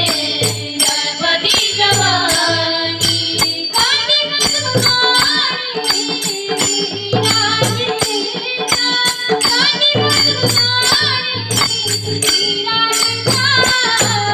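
Marathi devotional bhajan: a singer's voice over a drum and regular, bright metallic percussion strikes.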